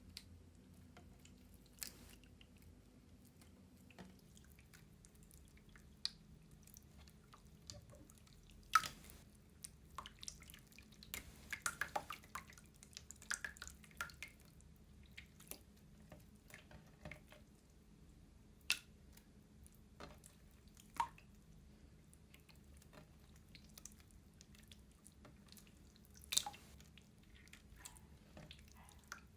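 Putty slime being squished and kneaded by hand: faint, irregular sticky pops and clicks, busier for a few seconds around the middle.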